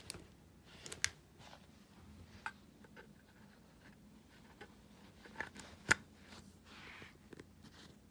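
Faint handling noise of a power cable: light rustles and a few short plastic clicks as its barrel plug is handled and fitted into an electric pencil sharpener's power jack, the sharpest click near six seconds.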